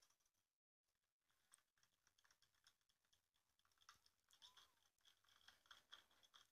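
Near silence with faint, scattered light clicks and scrapes of a utensil working green food colouring into martabak batter in a bowl, more frequent in the second half.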